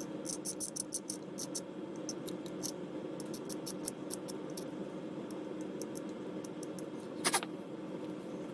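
Chrome plating being scraped off a plastic model-kit part in short, quick strokes, several a second, for about four and a half seconds, with one louder scrape near the end. A steady low hum runs underneath.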